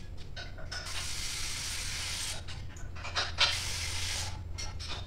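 Shop work noises: scattered mechanical clicks and rattles with two hissing bursts, each over a second long, one about a second in and one past the middle.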